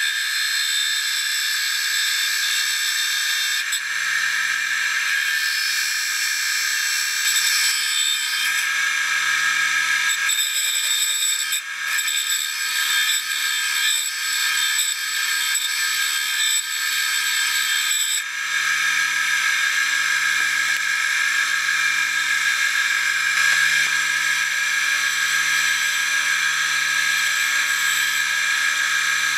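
Small electric grinder running with a steady high whine and a grinding hiss as a steel lathe cutoff tool is held against its thin wheel, grinding down the cutter's seat to take a new brazed carbide tip.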